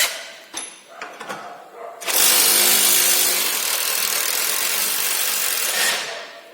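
A few light clicks, then about two seconds in a power tool runs steadily for about four seconds on the suspension bolts.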